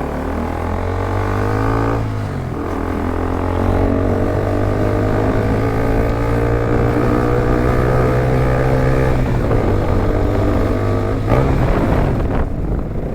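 KTM Duke 200's single-cylinder engine through an aftermarket Akrapovic exhaust, accelerating on the move. The note climbs, drops at a gear change about two seconds in, then climbs steadily for several seconds, falls off near nine seconds and picks up again near the end.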